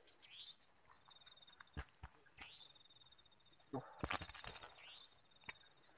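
Faint steady high-pitched insect chirring with a pulsing trill beneath it, broken by a few short rising chirps. Several soft clicks and taps, most of them about four seconds in, as hands handle a freshly caught fish.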